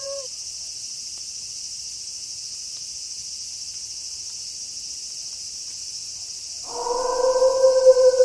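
A wolf howl trails off with a falling pitch just at the start, leaving a steady high chirring of night insects. Near the end a wolf starts a new long howl, one held note that sags slowly in pitch.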